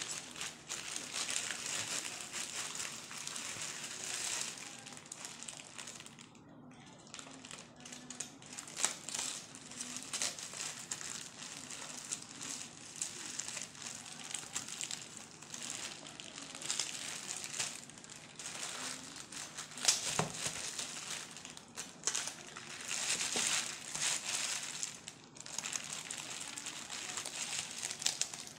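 Plastic mailing bag crinkling and rustling irregularly as it is cut and pulled open, with many short sharp crackles.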